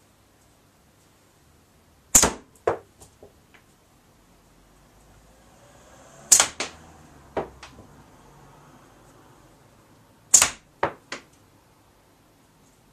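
Three slingshot shots about four seconds apart. Each is a sharp crack as a steel ball from the homemade board-cut catapult hits the target, followed within a second by two or three smaller knocks.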